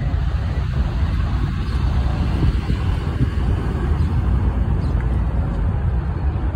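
Steady low rumble of many powerboat engines idling and running slowly together in a boat parade.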